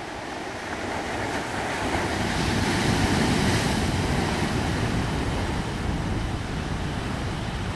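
Heavy surf breaking against black lava rocks. The rush of a wave swells from about a second in and is loudest around three seconds as it crashes over the rocks, then the foaming wash carries on a little lower.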